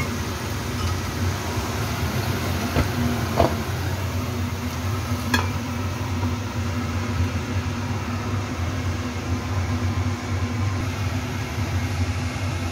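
Shimeji mushrooms being stir-fried in a pan with a spatula over a steady low hum, with a few sharp knocks of the spatula against the pan about three and five seconds in.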